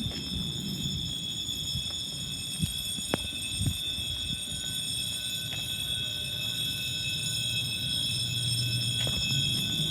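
Building fire alarm sounding continuously, one steady high-pitched tone without breaks, over a low rumble and a few faint clicks.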